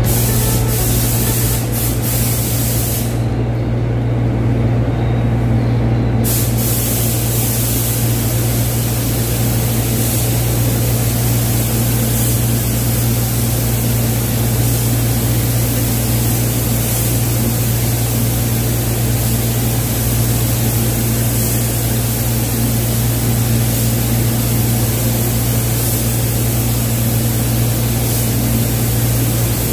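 Gravity-feed spray gun hissing steadily as paint is sprayed onto a car bonnet, over a steady low hum. The hiss stops about three seconds in and starts again a few seconds later.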